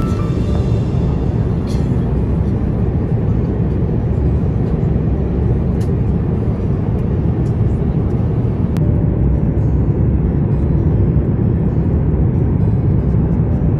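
Airliner cabin noise in cruise flight: a steady, low rush of engine and airflow noise, with a few faint clicks.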